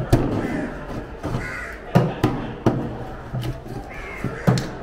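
Crows cawing several times, mixed with several sharp knocks of a heavy knife chopping through ray fish onto a wooden block.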